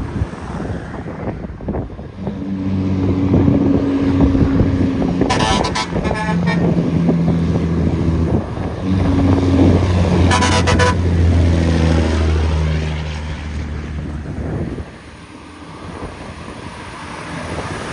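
Heavy diesel truck working up a steep grade as it passes, its engine pitch stepping between gears. Two short bursts of rapid clatter come about five and ten seconds in, and the engine fades near the end.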